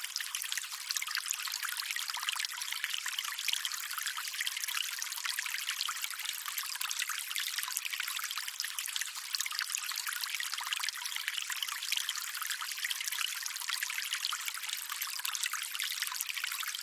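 Running water trickling steadily: an even, bright splashing hiss with no low rumble.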